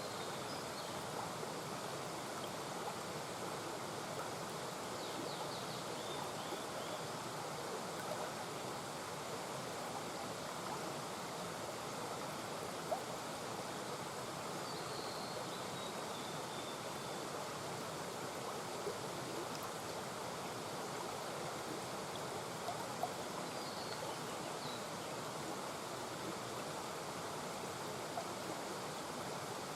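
Small mountain brook murmuring over stones, a steady even rush of running water.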